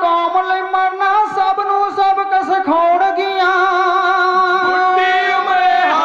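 A group of men singing a Punjabi Sikh religious ballad in unison through microphones, unaccompanied, in kavishri style, drawing out long held notes that change pitch only a few times.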